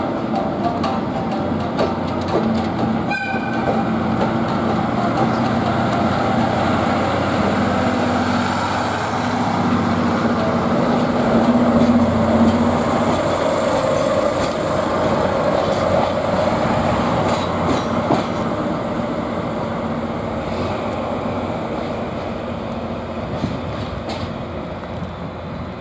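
JNR DE10 diesel-hydraulic locomotive pulling away at the rear of a train of blue passenger coaches, its engine running steadily and passing closest about twelve seconds in, with the wheels rolling over the rails. The sound fades slowly as the train moves off.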